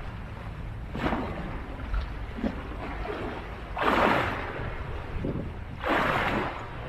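Small bay waves washing over a concrete seawall step and splashing back off its edge, surging about a second in, at about four seconds (the loudest) and again near six seconds. A low wind rumble on the microphone runs underneath.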